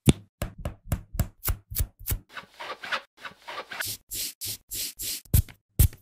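Cleaning tool rubbing and brushing over a hard surface in quick short strokes, about three or four a second. The strokes turn longer and smoother toward the end, then two sharper strokes, and the sound cuts off suddenly.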